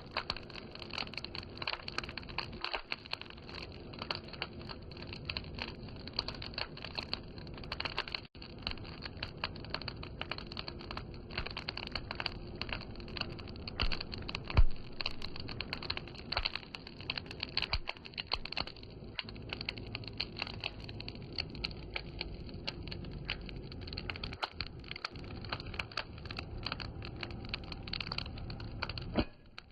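Firewood burning, crackling and popping continuously with many small irregular snaps, and one much louder pop about halfway through.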